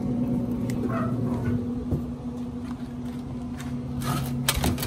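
A steady low hum, with a cluster of short clicks and rustles about four seconds in as a metal sheet pan holding a brisket wrapped in butcher paper is handled.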